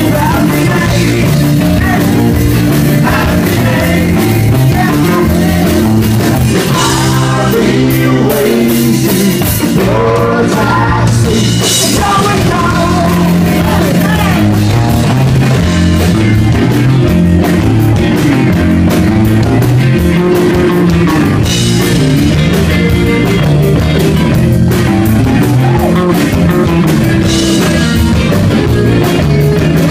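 Live rock band playing loud: a male singer over electric guitars, bass guitar and a drum kit.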